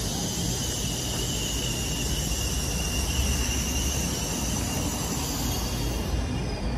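CR400BF high-speed electric multiple unit rolling slowly into the station: a steady low rumble with a high hiss above it that fades about six seconds in.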